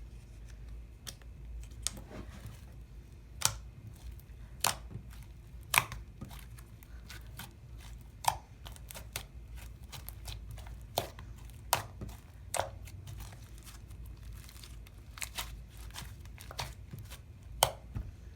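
Hands kneading and stretching a slime mixed with foam beads, giving irregular sharp pops and crackles.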